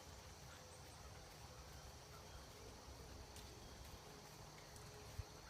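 Faint outdoor ambience: a steady high insect drone over a low rumble, with one brief low thump about five seconds in.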